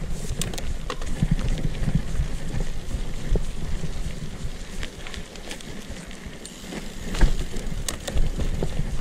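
Commencal Meta AM 29 mountain bike rolling down a dirt trail: a steady rumble of tyres and rattling bike, with scattered sharp knocks from bumps. It eases off a little in the middle and picks up again near the end.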